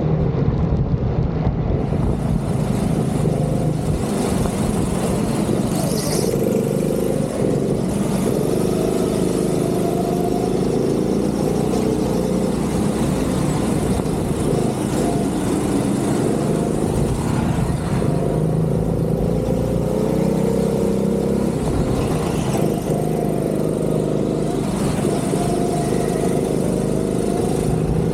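Go-kart engine at racing speed, heard on board, its pitch repeatedly climbing as the kart accelerates and dropping back as it slows for corners.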